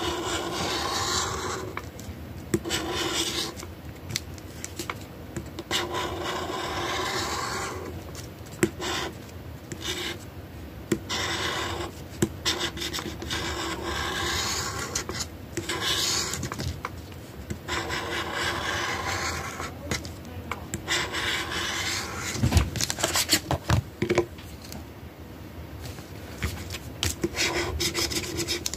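A scratch-off lottery ticket being scratched: repeated rasping strokes in runs of a second or two with short pauses between them, and a few sharp taps and clicks a little past the middle.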